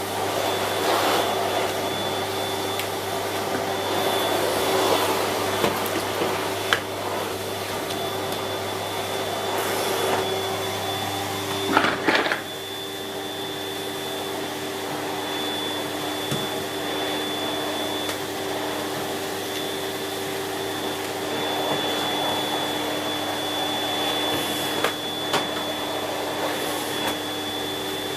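Siemens Z6.0 Power 2500 W bagged cylinder vacuum cleaner running steadily with a constant motor whine and a few sharp knocks. There is a brief clatter about twelve seconds in, after which the motor sounds slightly quieter.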